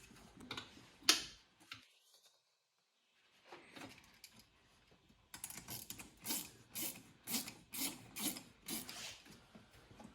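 A hand ratchet working a clamp bolt on turbo boost piping: a few scattered clicks, then from about halfway a regular run of ratcheting strokes, about two a second, as the clamp is tightened.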